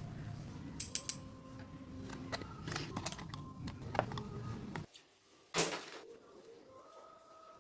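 Small mechanical parts being handled and worked by hand, with scattered clicks, creaks and a louder knock near the end. Under them runs a low rumble that cuts off suddenly about five seconds in.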